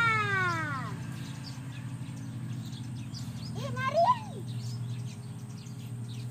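Children's voices calling out without words: a high squeal sliding down in pitch in the first second, then a louder rising-and-falling shout about four seconds in. Under them runs a steady low hum and a faint scratchy rattle of beach sand and shells being shaken through a wire-mesh sieve.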